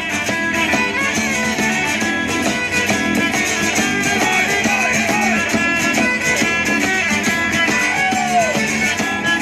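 A live folk band playing without pause, with plucked strings prominent and no words sung.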